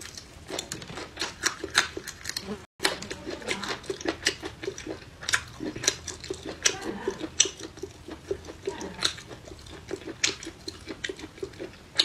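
Close-up crunchy chewing and biting of fresh raw red chili peppers: a dense run of crisp crackles, several a second, broken by a momentary dropout about three seconds in.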